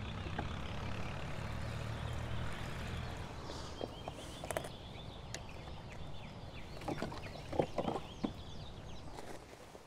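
Liquid spray mix poured from a bucket into the plastic tank of a battery backpack sprayer: a steady gurgling pour for about the first three and a half seconds. Then scattered clicks and knocks as the sprayer is set down and lifted by its straps, a cluster of them near the end.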